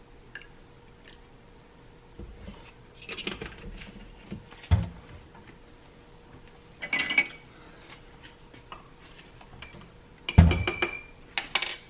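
Kitchen clatter: a few light knocks and a ringing clink about seven seconds in, then a spoon stirring in a ceramic mug, clinking against its sides several times near the end.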